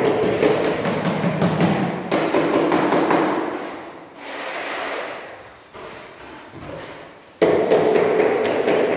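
Rapid hammering knocks echoing in a large bare room under renovation. They come in loud spells that start suddenly at the start, about two seconds in and near the end, each fading away.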